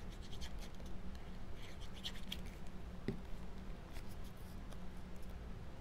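Light scratching and rustling of small cardstock pieces being handled and pressed together while gluing, in short clusters, with a soft knock about three seconds in, over a low steady hum.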